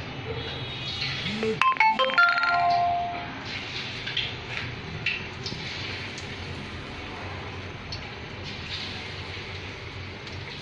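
A short electronic melody of quick beeping notes, like a ringtone or chime, sounds about one and a half seconds in. Around it is a steady background hiss with a few light clicks and knocks.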